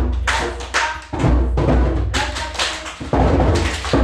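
Wooden djembe hand drums struck with bare hands by a group of players in a loose beat, about two strokes a second, each with a deep boom.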